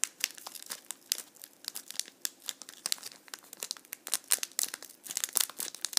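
Foil trading-card booster pack crinkling as it is handled and cut open across the top with scissors: a dense run of sharp crackles.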